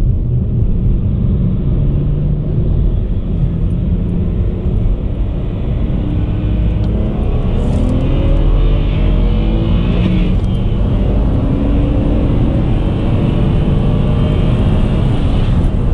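BMW 335i's twin-turbo N54 inline-six heard from inside the cabin while driving, running steadily and then accelerating, its pitch rising about six seconds in, with short hisses around eight and ten seconds in.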